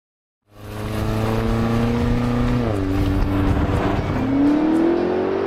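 Range Rover Sport SV's twin-turbo V8 pulling hard under acceleration. Its note drops once partway through, like an upshift, then rises steadily as the car speeds up again.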